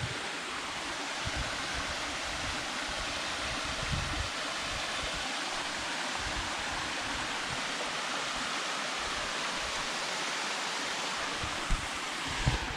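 Steady rush of falling water from a waterfall, with one brief thump near the end.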